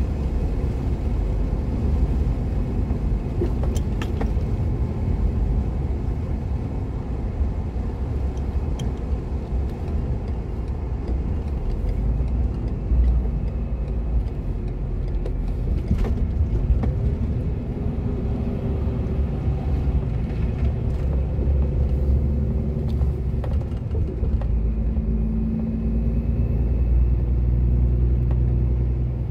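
Steady engine and tyre rumble from a vehicle cruising on a motorway, with an engine hum that shifts in pitch in the second half and a few small clicks or rattles.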